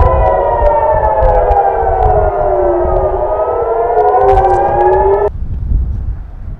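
Several air-raid warning sirens wailing together, their tones slowly rising and falling out of step over a low rumble, the alert for an incoming missile and drone attack. The sirens cut off suddenly about five seconds in.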